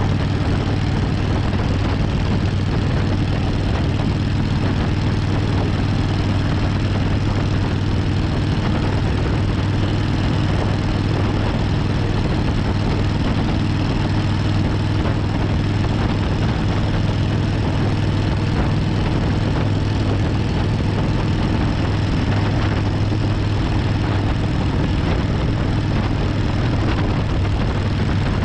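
Suzuki Intruder 1400's V-twin engine and exhaust running steadily under way, a low even drone with no change in revs.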